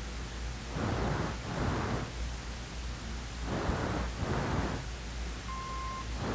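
Hiss and a steady low hum from an old soundtrack's background noise, the hiss swelling and fading. About five and a half seconds in, a short steady beep sounds for about half a second.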